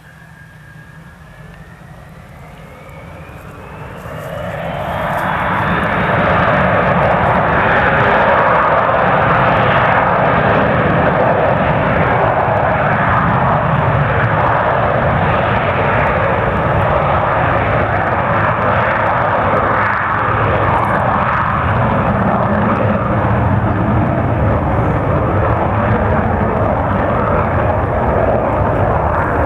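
Tupolev Tu-134A-3's two Soloviev D-30 turbofan engines spooling up: a whine climbs steadily in pitch over the first few seconds as the engine noise swells, then levels into a loud, steady jet noise at high power, as for the take-off run.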